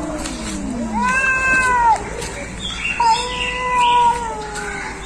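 Cat yowling in long, drawn-out calls, one about a second in and a longer, slowly falling one from about three seconds in, with a lower growling glide at the start: the threatening yowl of a cat facing a rival.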